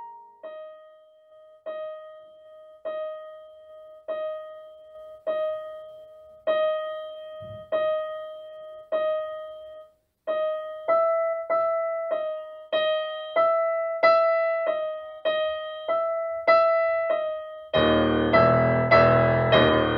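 Piano music: one note struck again and again, slowly at first, then about twice as fast and louder halfway through, with a higher note joining in. Near the end a much fuller, louder layer of music comes in.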